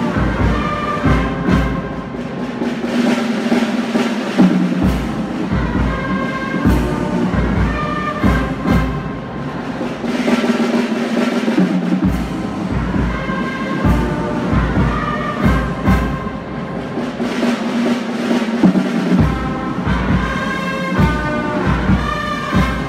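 Brass band playing: trombones, euphoniums and tubas sound held chords over a steady drum beat.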